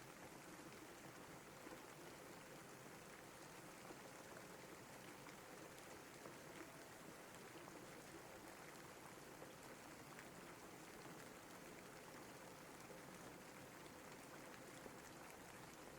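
Steady, quiet rain: an even hiss with faint scattered ticks of individual drops.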